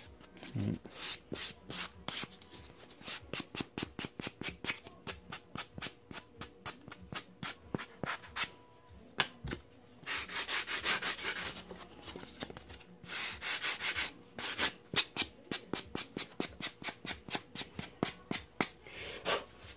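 Sanding sponge rubbed by hand along a thin wooden elevon strip in quick back-and-forth strokes, about three a second, with two spells of faster, continuous rubbing in the second half. This is light finish sanding to take the fuzz off the wood.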